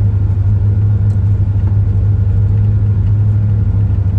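Steady engine and road noise inside a moving vehicle's cab, a constant low drone with no change in pace.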